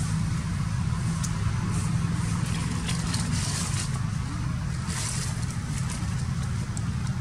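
Steady low engine hum with a few faint rustling clicks over it.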